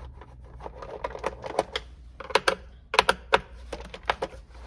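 Irregular small clicks and taps of a screwdriver turning out the Torx 27 screws of a Stihl MS 291 chainsaw's plastic top cover, with a few sharper clicks a little past the middle.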